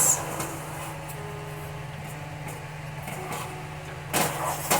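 A steady low mechanical hum, with one short, louder burst of noise about four seconds in.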